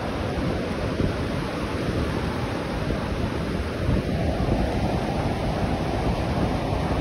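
Ocean surf breaking and washing in over a shallow sandy beach, a steady rush of water, with wind on the microphone.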